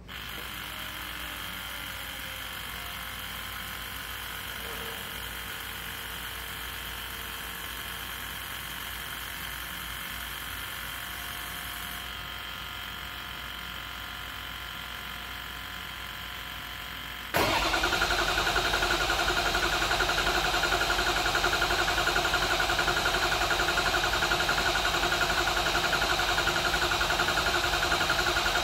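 Ford 6.0 Power Stroke V8 turbo-diesel cranking over steadily for a long stretch on its first start after the oil standpipes were replaced, typical of the high-pressure oil system refilling. About seventeen seconds in it fires and settles into a much louder, steady run.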